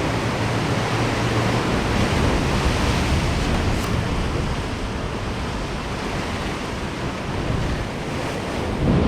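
Steady rush of wind on the microphone mixed with ocean surf washing against the shore.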